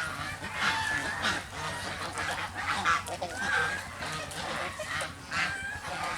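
Geese honking, many short calls in quick irregular succession, some overlapping.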